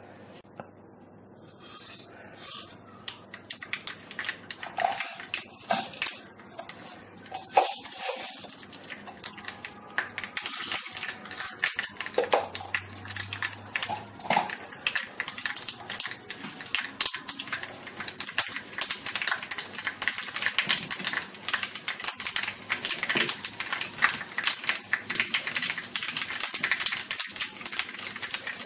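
Mustard and fenugreek seeds frying in hot oil in a nonstick pan, spluttering and popping as the seeds burst: scattered pops begin about two seconds in and build into a dense, steady crackle. This spluttering is the tempering stage, the sign that the oil is hot enough.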